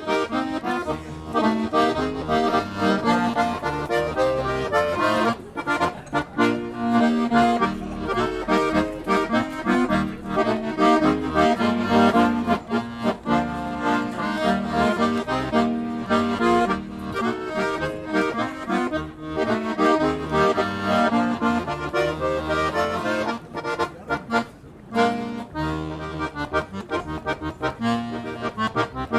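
Accordion playing a march, a melody over changing bass notes and chords.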